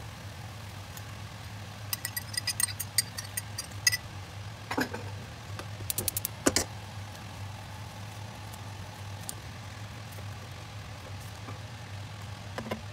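A steady low hum, with light clinks and a few sharper knocks of a silicone spatula and non-stick frying pan against a ceramic bowl as tomato and scrambled egg are scraped out.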